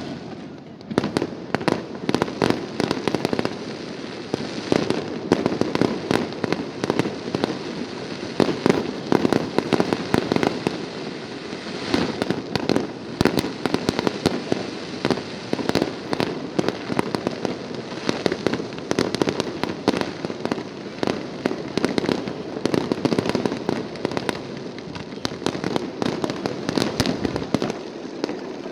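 Fireworks display: a dense, unbroken run of bangs and crackles, with louder volleys coming and going.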